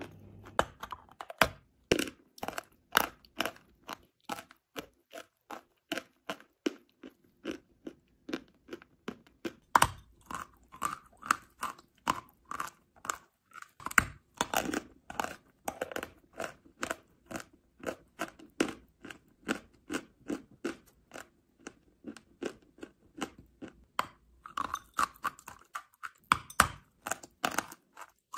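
Close-miked chewing and crunching of lumps of chalk: a steady run of sharp crunches, several a second.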